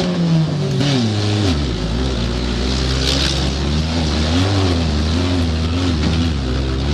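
Stock car engine heard from inside the cockpit at racing speed, revs climbing at the start, dropping about a second and a half in, then rising and falling with the throttle.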